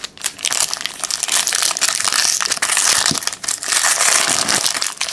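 Foil wrapper of a trading-card pack crinkling as it is torn open and handled, a dense crackle of many small clicks.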